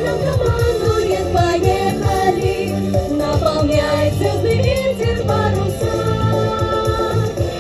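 A pop song with a children's choir singing over a backing track with a steady bass beat.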